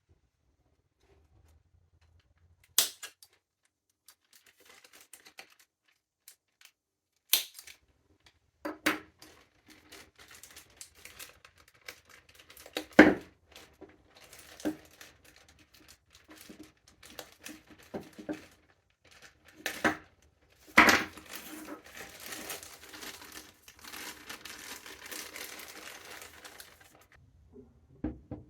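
Plastic packaging being crinkled and torn open, with several sharp clicks and knocks of hard parts being handled, and a longer stretch of rustling near the end.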